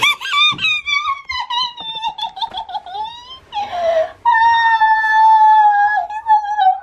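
A woman's high-pitched cries of joy during a tearful hug. First comes a string of short, broken squeals that slide downward, then a breathy gasp about four seconds in, then one long held wail near the end.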